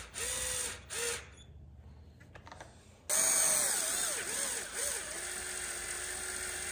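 Cordless drill-driver with a long extension bit driving screws into a shotgun stock: three short bursts of the motor, a pause, then a longer run of about four seconds whose whine wobbles in pitch and then settles lower and steady.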